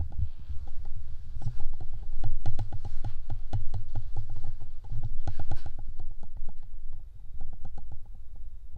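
Handling noise from a hand-held camera being carried around: a low rumble with rapid, irregular knocks and taps.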